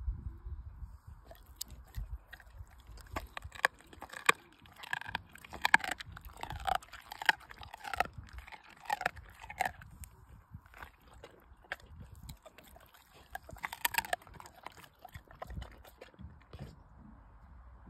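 An American Staffordshire Terrier chewing raw meat: an irregular run of sharp clicks from its jaws, busiest in the middle and again near the end.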